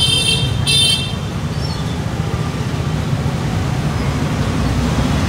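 Steady low rumble of street traffic, with two short horn beeps in the first second.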